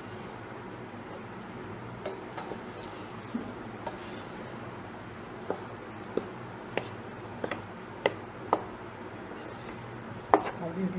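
A spatula stirring and turning fried rice in a pan. Irregular light knocks and scrapes of the spatula against the pan come every half second to second or so.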